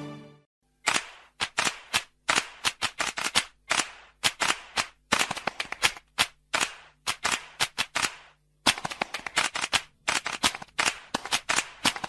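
Sharp percussive claps in quick rhythmic groups of two to five, starting about a second in after the music stops, over a faint steady hum.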